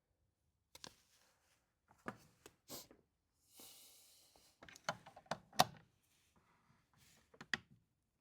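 Scattered light clicks and knocks of plastic and metal parts being handled as an aftermarket recoil starter assembly is fitted to a Stihl MS180c chainsaw, with a short scraping rustle about three and a half seconds in.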